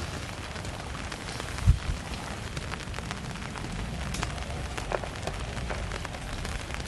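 Steady rain with scattered drops ticking, over a low rumble. A single dull thump comes about a second and a half in.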